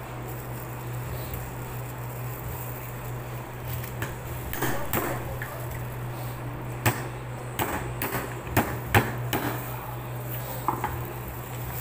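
Crab shells being cracked: a crunch of shell, then a quick run of sharp knocks from a pounder hitting crab on the table in the second half, over a steady low hum.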